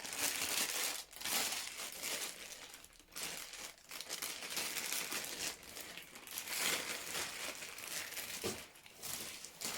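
Packaging crinkling and rustling in irregular stretches as laptop box contents are unwrapped and handled.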